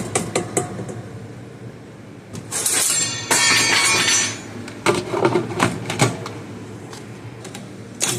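Sharp clicks and clatter of kitchen utensils and containers, with a loud rushing noise lasting about two seconds in the middle.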